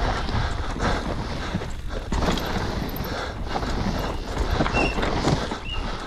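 Cube Two15 downhill mountain bike ridden fast down a dry, bumpy dirt trail: tyres on loose dirt and the bike rattling and knocking over the bumps, over a steady rumble of wind on the microphone. Two brief high chirps sound near the end.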